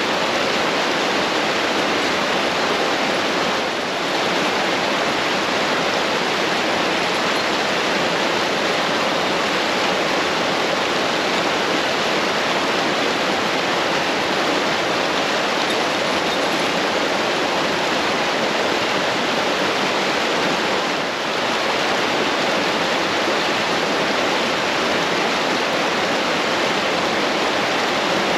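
A brook swollen with snowmelt and rain, rushing in a steady, loud wash of water.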